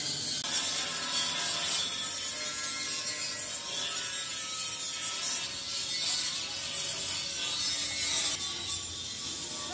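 Handheld angle grinder with an abrasive disc grinding down weld seams on sheet steel: a steady high hiss of abrasive on metal over the motor's whine.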